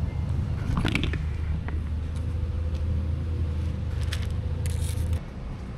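A steady low mechanical hum that cuts off suddenly near the end. Over it come a few short scrapes and rattles as a plastic bowl of dry cat food is lifted and carried.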